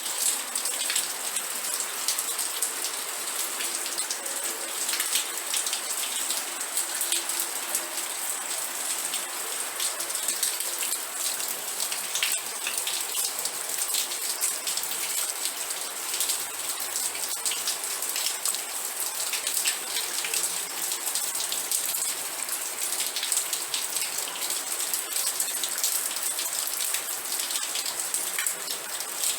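Steady rain, with a dense patter of drops landing on a surface.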